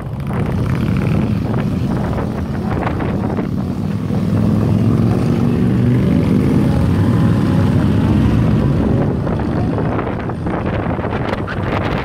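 Motorcycle engine running steadily while riding along, with wind buffeting the microphone.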